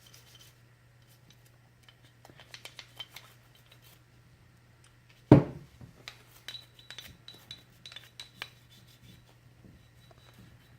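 Toothbrush bristles scrubbing powder residue off a Glock 19's steel slide, with light scraping and small metallic clicks and clinks as the slide is handled. One louder, sudden sound about five seconds in. A steady low hum sits underneath.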